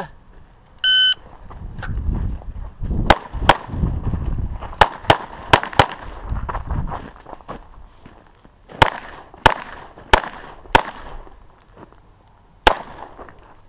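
A shot timer's start beep, then a 9mm EAA/Tanfoglio Witness Elite Limited Pro pistol fired about eleven times in quick strings of two to four shots with short pauses between, and one last shot near the end.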